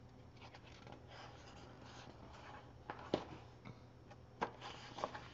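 Quiet room with faint paper rustling and a few light clicks as a picture book's pages are handled and turned, over a low steady hum.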